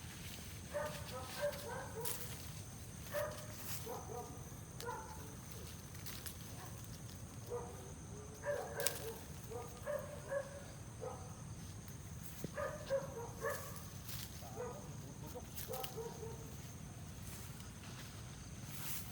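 An animal calling in quick clusters of short notes, again and again every second or so, over a steady low background hum, with a few sharp clicks.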